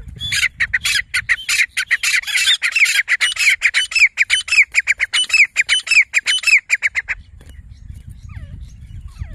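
Grey francolin calling: a long, rapid run of loud, sharp, ringing notes, several a second, that stops suddenly about seven seconds in. A few faint gliding bird notes follow near the end.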